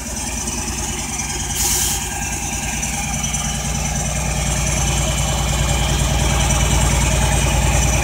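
General Motors (Detroit Diesel) two-stroke six-cylinder diesel engine of a Budd RDC railcar idling steadily with an even low beat. A brief hiss comes about two seconds in.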